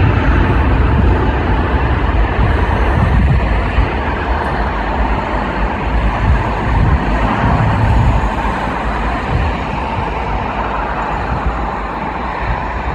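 Airbus A320neo's CFM LEAP-1A turbofan engines at take-off power during the take-off roll: a steady deep rumble with a hiss, slowly fading as the airliner accelerates away.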